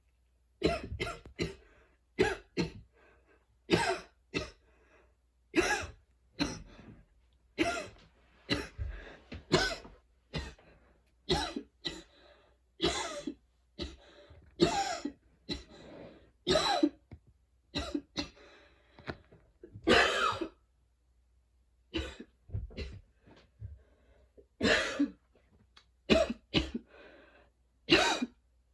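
A woman's long wheezy coughing fit: harsh coughs come in twos and threes every second or two, with a short break about three-quarters of the way through. The fit is brought on by running, tiredness and an allergy to freshly cut grass.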